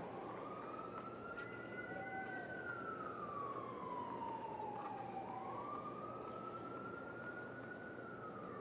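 Emergency-vehicle siren on a slow wail, its single tone rising and falling in pitch twice.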